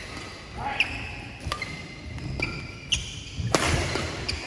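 Badminton rackets striking a shuttlecock during a doubles rally, about five sharp hits at uneven intervals, with shoes squeaking on the court floor.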